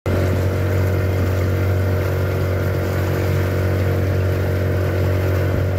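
Small wooden boat's engine running steadily under way, a constant low hum, with water splashing along the hull.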